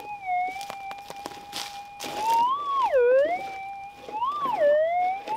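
Gold-prospecting metal detector's steady threshold tone. The pitch twice swells up and dips back down, the detector's response to a target passed over the coil.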